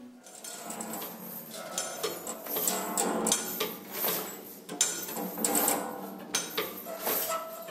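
A fast, uneven run of knocks and clanks with some metallic ringing, building up over the first second.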